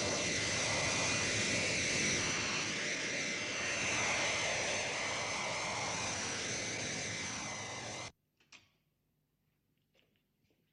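Jet engine sound for a jet transport aircraft in flight: a steady roar with high whining tones, cutting off suddenly about eight seconds in. Then a few faint clicks as a door is opened.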